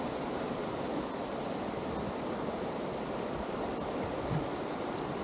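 Steady rushing of river water over a small cascade.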